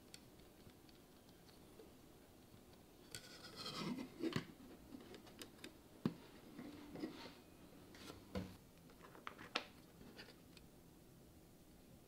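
3D-printed plastic model parts being handled and fitted together: plastic scraping and rubbing with several sharp clicks. It starts about three seconds in and dies away near the end.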